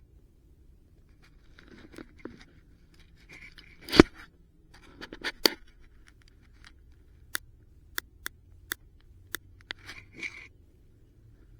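Clicks, knocks and short scrapes from rusty metal scrap being handled on and around a magnet-fishing magnet. The loudest knock comes about four seconds in, and a run of quick sharp clicks follows later.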